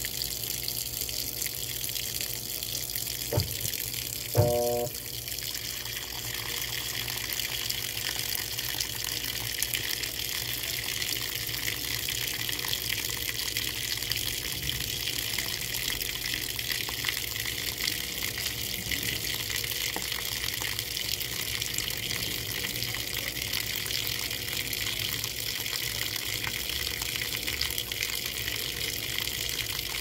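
Water pouring into the drum of a top-loading washing machine as it fills, a steady rushing hiss of water falling onto laundry. About three and a half seconds in there is a click, and a second later a brief louder knock.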